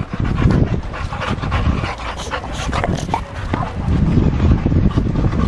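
Boxer dogs on leads giving short whimpers, over a steady low rumble of wind on the microphone.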